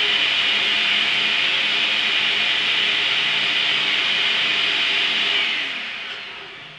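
Table saw running as it rips along the edge of three stacked strips of 2x3 stud to true one edge, with a steady high cutting noise. The sound dies away near the end as the saw winds down.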